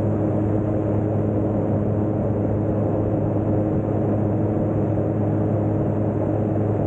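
Light propeller aircraft's piston engine running steadily at high power, a constant drone with a low, even pitch.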